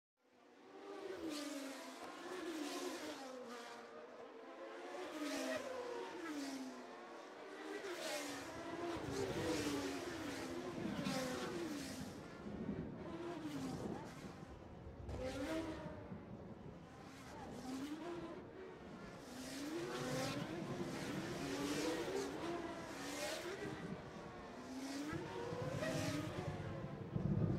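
Car engines revving again and again in overlapping swoops, their pitch rising and falling. A deep rumble joins in about eight seconds in.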